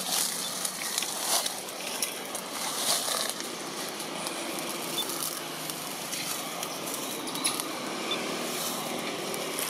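Steady outdoor background hiss with scattered short crackles and rustles.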